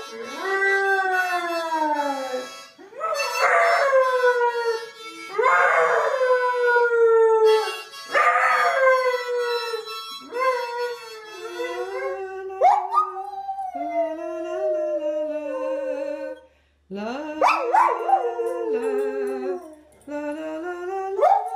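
Dogs howling in a string of long howls, most falling in pitch. A hound howls first, and after a brief break a springer spaniel howls.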